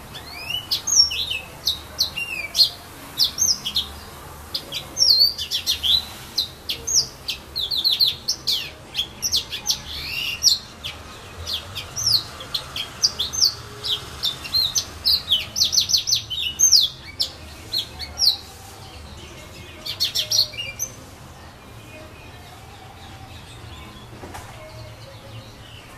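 Yellow-fronted canary (serin du pays) singing: a long, rapid run of high chirps and quick trills in phrases with short pauses, falling silent about 21 seconds in.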